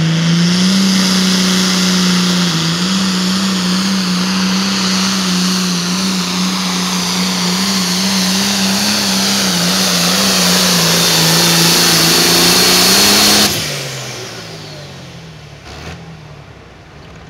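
Turbocharged diesel Hot Farm class pulling tractor at full throttle under load, its pitch held nearly steady with small steps. About 13 seconds in the throttle is cut and the engine drops away quickly, its pitch falling as it winds down.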